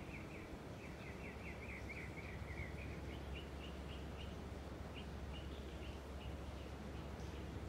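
A small bird chirping: a fast run of short, high, falling chirps in the first few seconds, then single chirps spaced further apart, over a steady low background rumble.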